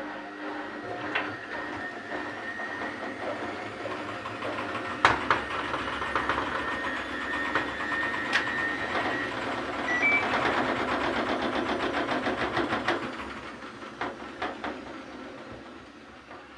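Washing machine drum turning with a load of wet towels: a motor hum with a rapid, even clicking and rattling, and a few sharp knocks about five seconds in. The clatter is loudest around ten to thirteen seconds in, then fades.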